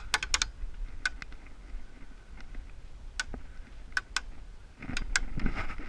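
Airsoft guns firing: sharp single pops, a quick run of about four right at the start, then scattered shots every second or so.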